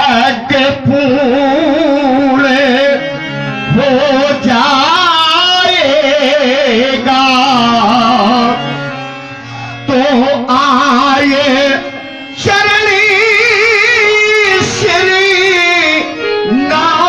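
One voice singing a slow, wavering melodic line over a microphone and loudspeakers, in long phrases with short breaks between them.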